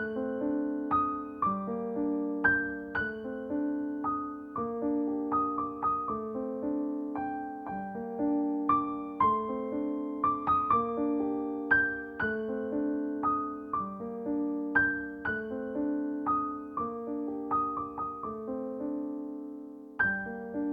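Background music: a gentle piano tune of struck notes and chords ringing out, with a new note or chord about every half second to second.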